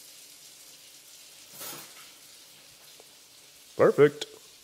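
Red juice being poured from a plastic bottle into a glass tumbler: a faint, steady pouring hiss, with a brief louder rush about a second and a half in.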